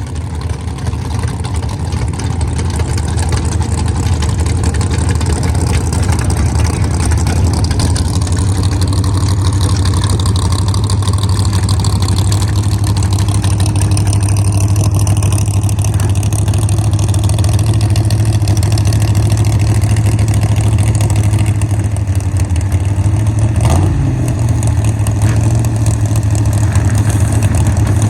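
A car engine running at a steady low speed, with a brief rise and fall in revs near the end.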